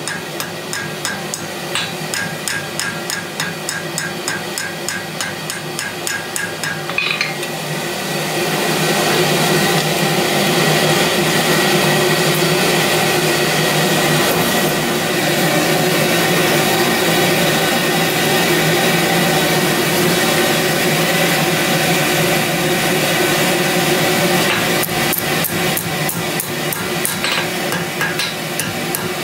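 Ball-pein hand hammer striking red-hot steel tong stock on an anvil, about three quick blows a second. About seven seconds in the hammering stops and a louder steady rushing noise of the forge's air blower and fire takes over while the steel reheats. Near the end the hammer blows on the anvil start again.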